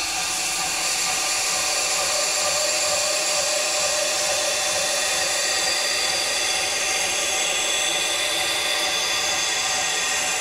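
Variable-speed belt grinder with a new 120-grit belt grinding the cutting edge on a 1095 steel knife blade. A steady hiss with several high whining tones over it, even throughout.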